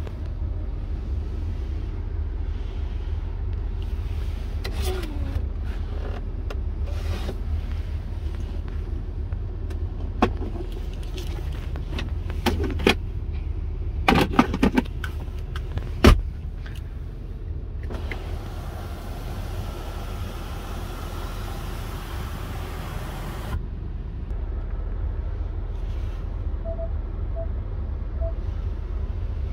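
Ford F-250 Super Duty pickup idling with a steady low rumble. Several sharp clicks and knocks come in the middle. A steady whir runs for about five seconds past the middle and cuts off suddenly, and three faint short beeps sound near the end.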